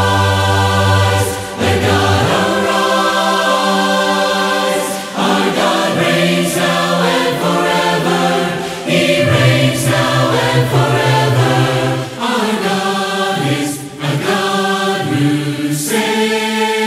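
Several voices singing a hymn a cappella in harmony, with long held notes over a low bass part.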